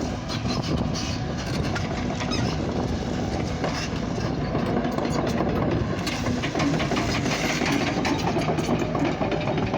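A diesel train rolling past, with a steady engine rumble and wheels clicking over the rails.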